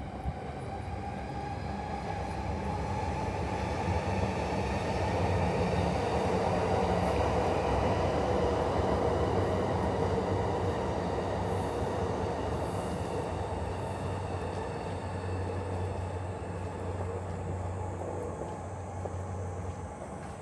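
A train passing: a steady rumble of wheels on rails that builds to its loudest about a third of the way in, then slowly fades.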